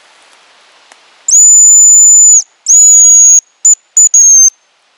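Hazel grouse decoy whistle blown close up, imitating the male's song: a long, loud, high whistle, a second slightly shorter one, then two quick short pips and a final note that falls slightly at the end.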